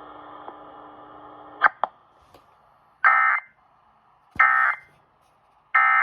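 Three short Emergency Alert System end-of-message data bursts, the warbling digital tones that close an alert, about a second and a half apart. Before them, a steady radio hum and hiss cuts off with a click.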